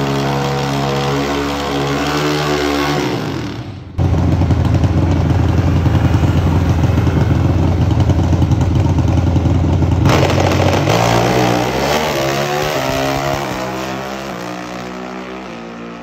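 Pro Stock drag motorcycle engine held at high revs on the start line, jumping suddenly louder about four seconds in. Near the end it launches: the pitch rises and steps with gear changes while the sound fades as the bike pulls away down the track.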